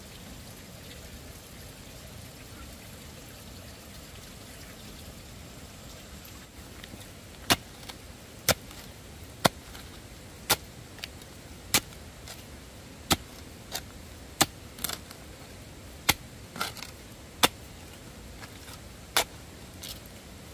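About a dozen sharp knocks, roughly one a second and unevenly spaced, starting about seven seconds in over a faint steady background noise.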